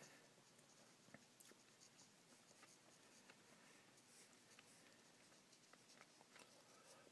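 Faint scratching and scattered small ticks of a paintbrush working on watercolour paper, at near silence.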